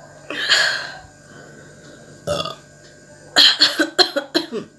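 A woman burping after drinking cold carbonated Sprite: a long burp about half a second in, a short one past two seconds, then a quick run of short burps near the end.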